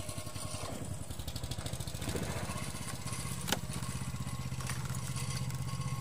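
Small boat's engine running with a fast, even chugging, growing a little louder about two seconds in as the boat pulls away from the shore. A single sharp knock sounds about three and a half seconds in.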